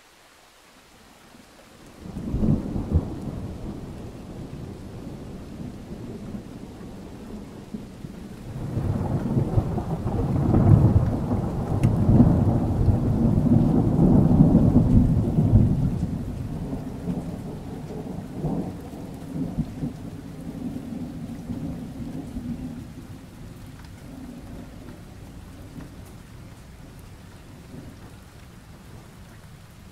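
Thunderstorm: rain falling steadily while thunder rolls. A clap of thunder breaks about two seconds in, then a long deep rolling rumble builds, is loudest around the middle, and slowly dies away.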